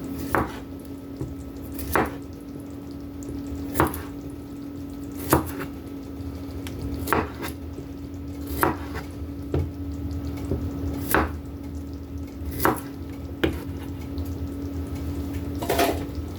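Kitchen knife slicing radishes on a cutting board: a sharp knock of the blade on the board about every one and a half seconds, over a steady low hum.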